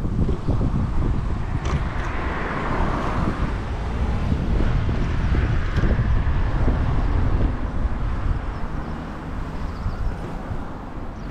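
Wind buffeting the microphone of a camera riding on a moving bicycle, with a road vehicle passing: its tyre noise swells about a second and a half in and fades again a few seconds later.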